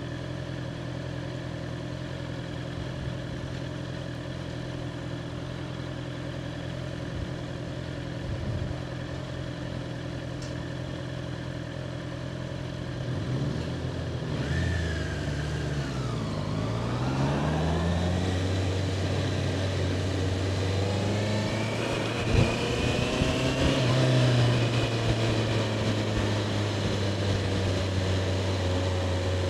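2021 Honda CBR650R's inline-four engine idling steadily, then a bit under halfway through it pulls away, its pitch sweeping up and down, and settles into a steady, louder run.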